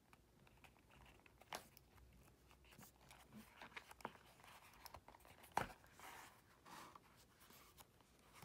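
Faint handling sounds of hand-stitching leather: light rustling and a few soft clicks as the needle is worked through the pre-punched holes, the sharpest click about five and a half seconds in.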